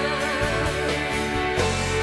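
Live band accompaniment of a pop song: steady held chords over a bass line, with no singing. The bass moves to a new note about one and a half seconds in.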